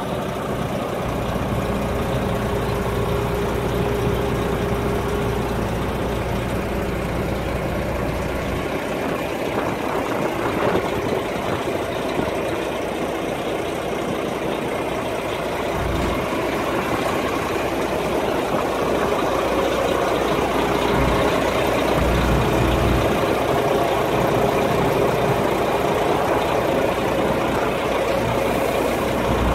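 DAF XF 460 tractor unit's straight-six diesel engine idling steadily, with a few short low rumbles after the middle.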